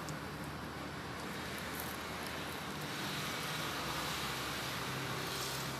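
Steady background noise: an even hiss with a faint low hum under it.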